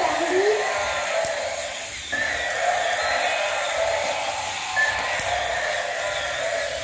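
Battery-powered toy dinosaurs running, giving a steady electric whirring hiss from their motors, with a few brief electronic tones.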